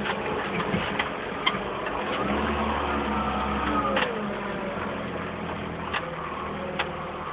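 Fenwick HD30 forklift engine running steadily, with a deeper, stronger note for about two seconds midway that drops away with a falling whine. Several sharp clanks come through, about six in all.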